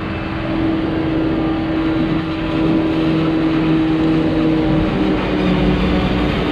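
Diesel farm machinery at work in maize silage harvest: engines running steadily under load with a steady mechanical whine. The tones shift slightly about five seconds in.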